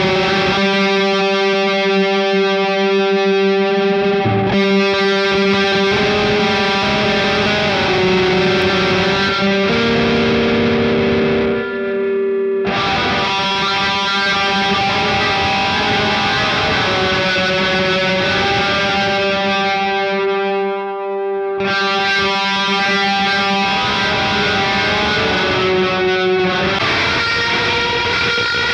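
Electric guitar played through a Joyo R-14 Atmosphere reverb pedal: long sustained notes that change every few seconds and wash into one another in an ambient reverb.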